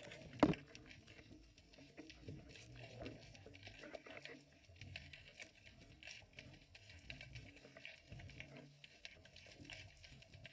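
Underwater sound through a GoPro's waterproof housing: a single loud thump about half a second in, as the camera bumps the sandy bottom and stirs up the sand, then scattered small clicks and crackles with soft low knocks.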